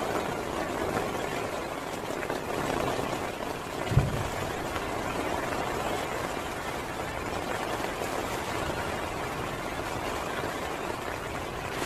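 Steady heavy rain, with one brief low thump about four seconds in.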